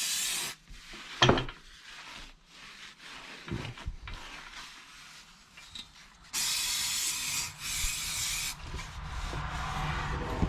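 Aerosol brake cleaner hissing from the can onto the rusty downpipe. It cuts off about half a second in and sprays again for about two seconds past the middle. Between the sprays there is rubbing and scraping on the pipe, and a low scrubbing near the end.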